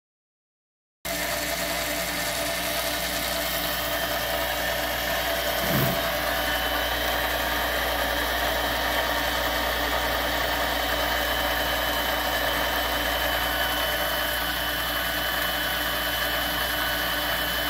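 Harbor Freight 7x10 mini lathe running steadily with its chuck and workpiece spinning: an even whir of motor and gears holding several steady tones. It starts abruptly about a second in.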